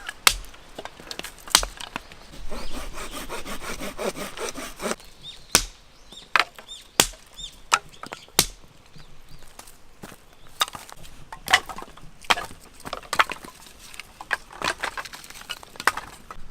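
Firewood being cut and split by hand: a few seconds of steady, repeated rasping strokes early on, then a series of sharp wooden strikes and cracks about a second or so apart.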